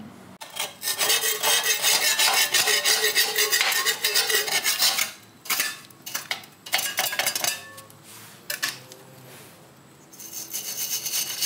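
Metal scraping and clinking. It runs as one long stretch of about four seconds, then a few shorter bursts, and ends with a last burst near the end that rings faintly.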